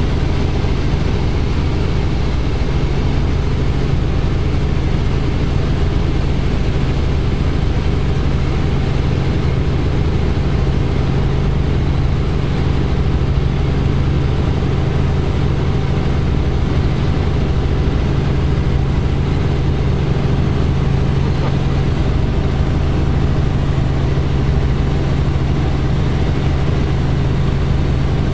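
Robinson R44 helicopter heard from inside the cockpit in flight: the steady drone of its six-cylinder Lycoming piston engine and rotors, a strong low hum that holds one pitch under a constant rushing noise.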